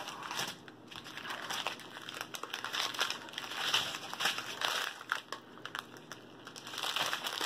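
Small clear plastic bags of diamond-painting drills crinkling as they are handled and laid out, an irregular run of soft crackles.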